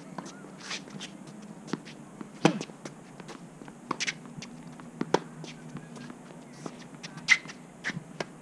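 Tennis rally on a hard court: sharp pops of racket strings hitting the ball and the ball bouncing, the loudest strikes about every two and a half seconds with quieter hits and bounces between.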